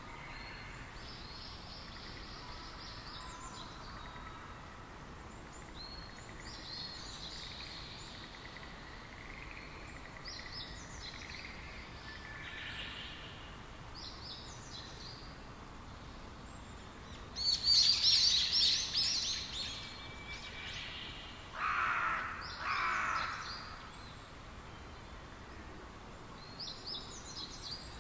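Birds chirping over a steady faint hiss, short high chirps every few seconds. About two-thirds of the way through comes a louder burst of rapid chirps, followed by two shorter, lower-pitched bursts.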